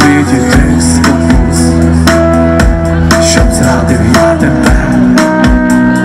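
Live band playing amplified folk-rock: strummed acoustic guitar, violin and bass guitar over a steady kick-drum beat.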